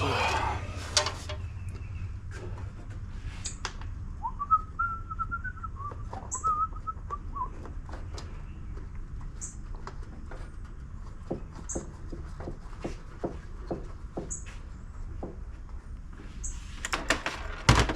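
A man whistling a short wavering tune for a few seconds, amid scattered clicks and clinks of bolts and parts being handled. A short high chirp repeats every two to three seconds over a steady low hum.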